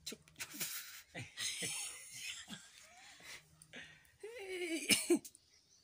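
People laughing: breathy, hissing bursts of laughter, then a voiced laugh with wavering pitch about four seconds in.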